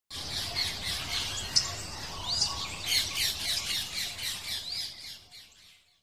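A flock of small pet parrots in an aviary chirping and squawking together, with many overlapping calls that fade out near the end.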